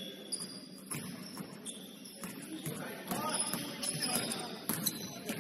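Basketball game sounds on an indoor court: sneakers squeaking briefly on the floor, the ball bouncing, and players' voices calling out in the background.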